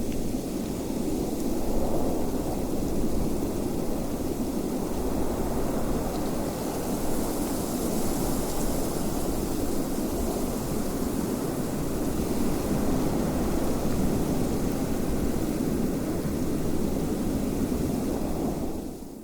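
Steady, deep rushing wind with no gusts or breaks, swelling a little at times; it begins to fade out at the very end.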